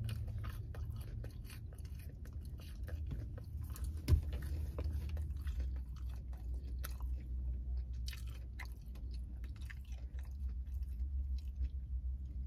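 A person chewing food close to the microphone: an irregular run of small wet mouth clicks and crunches, with one sharper bite about four seconds in, over a steady low hum.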